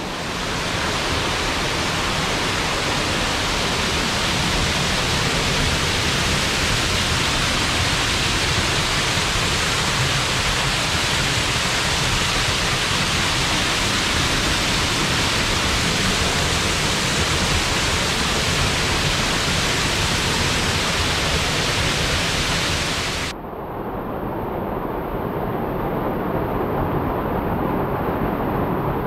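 Small forest waterfall: steady rushing and splashing of water falling into a rocky pool. About six seconds before the end the sound changes abruptly to a duller, lower rush with the high hiss gone.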